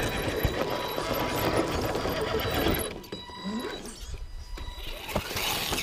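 Radio-controlled scale rock crawler's electric motor and gearbox whirring under load, with tyres scrabbling and clicking over rock and forest debris; busiest in the first half, quieter after about three seconds.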